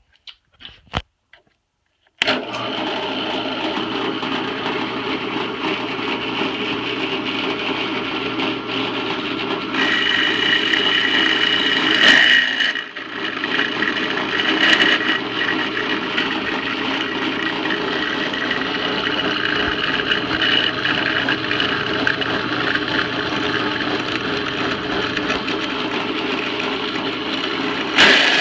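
Electric drill running with a step bit cutting into the aluminum turn-signal mount of a Harley Sportster. The drill starts about two seconds in, stops briefly near the middle, then runs steadily again.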